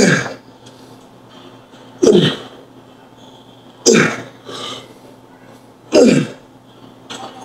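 A man grunting hard with each rep of heavy dumbbell curls: four short grunts about two seconds apart, each falling in pitch.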